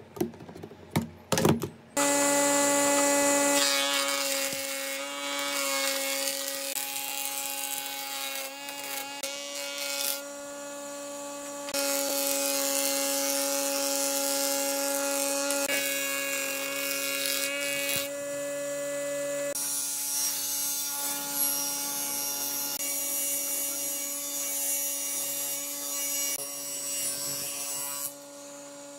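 A few sharp knocks, then woodworking machinery running with a steady motor whine. The sound changes several times as the work moves between machines; a wood planer feeding a pine board is one of them.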